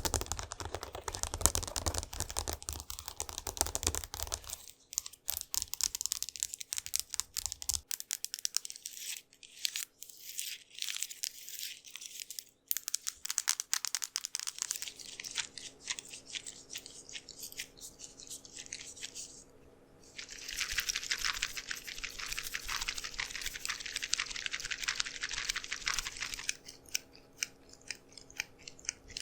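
Rapid tapping and scratching on a wooden object close to a microphone: dense crackly clicks in changing patterns, busiest at the start and again after a short lull about two-thirds through.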